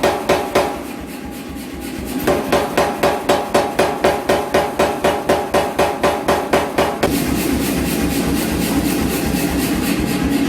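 Rapid, evenly spaced hammer blows forging steel, about four a second, with a short pause about a second in. From about seven seconds in the blows turn into a faster, continuous run.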